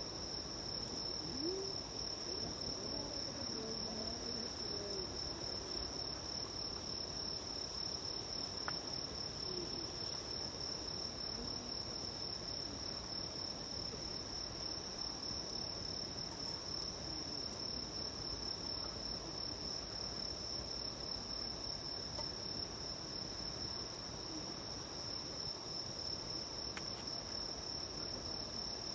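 Crickets singing in a steady chorus: one continuous high-pitched trill that holds the same pitch and level, with a couple of faint single clicks.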